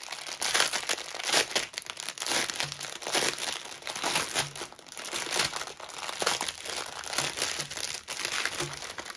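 Clear plastic wrapping around a roll of diamond painting drill packets crinkling loudly as hands pull it open and handle it, in irregular rustles and crackles.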